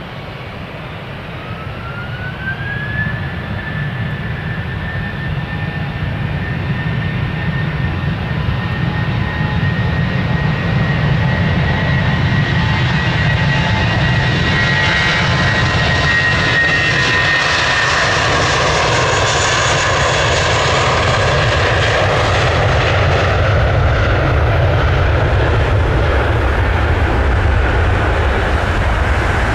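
Airbus A320's twin IAE V2500 turbofan engines spooling up to takeoff thrust: a whine rises in pitch about two seconds in and then holds steady over a deep, growing rumble as the airliner accelerates down the runway, getting louder through the first half and then staying loud.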